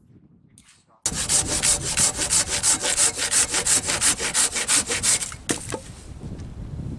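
A hand saw cutting through wood with fast, even back-and-forth strokes, starting suddenly about a second in. The sawing stops after about four seconds, followed by a couple of light knocks.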